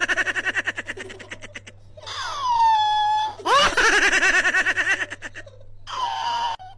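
High-pitched giggling and laughter: a fast run of short laughing pulses, then a falling squeal and a long wavering laugh, with a shorter burst near the end.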